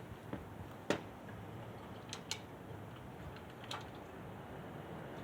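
A few faint, sharp clicks and knocks, a pair close together about two seconds in, over a low background hum; no engine is running.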